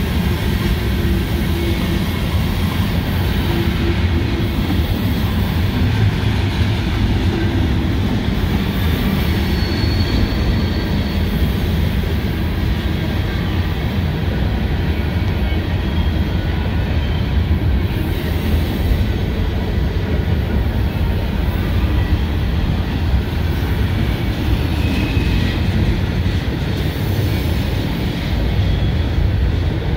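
Freight train of covered hopper cars rolling past close by: a steady, loud rumble of steel wheels on rail, with brief faint wheel squeals now and then as the cars take the curve of the wye.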